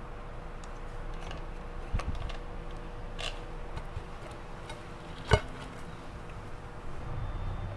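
A hand picking a piece of crispy fried chicken off a plate: faint crackles of the crust, a knock about two seconds in and a sharp click a little after five seconds, over a faint steady hum.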